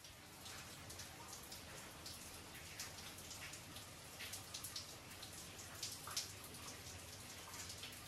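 Rain falling, with many separate drops ticking sharply onto a corrugated roof over a steady hiss.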